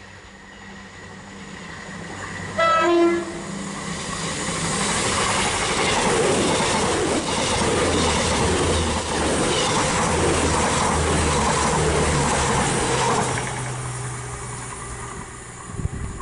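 CrossCountry diesel passenger train sounding its horn once, briefly, on the approach, then running through the station, with a rumble and wheel clatter that build, hold for several seconds and fade away.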